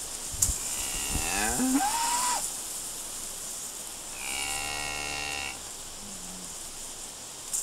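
Tauros cattle lowing: a long moo that rises in pitch, then about two seconds later a second, steadier moo. A sharp click comes just before the first call.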